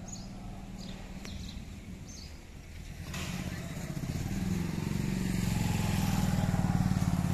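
A motor vehicle's engine running, growing louder from about three seconds in as it draws near, loudest near the end.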